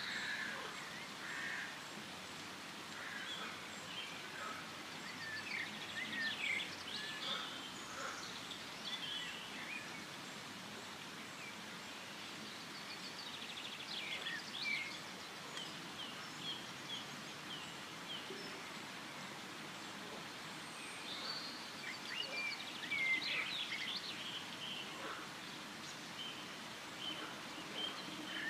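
Forest ambience: several birds chirping and trilling in short, scattered calls over a steady background hiss, busier in a few clusters and calmer in between.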